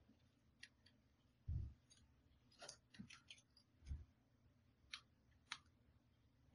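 Faint crisp clicks and short rustles of folded paper 3D origami units being picked up and pushed into a paper model, with two soft low thumps, one about a second and a half in and one near four seconds.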